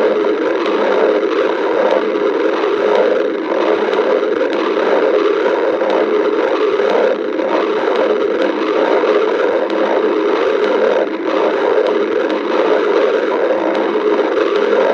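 A person's stomach growling and gurgling, recorded close up as a continuous noisy churn with no breaks.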